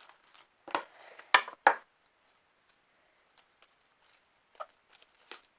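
Sticky homemade glue slime being worked by hand: three sharp sticky clicks and squelches between about one and two seconds in, then only a few faint small ticks.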